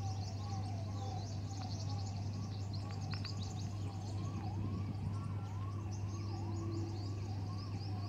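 Birds calling in a wetland: a repeated rising-and-falling note about twice a second, with quick high chirps over it and a steady low hum underneath.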